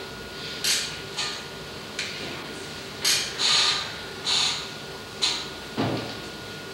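A series of short knocks and clatters, about eight over several seconds, with a duller thump near the end, over a faint steady hum.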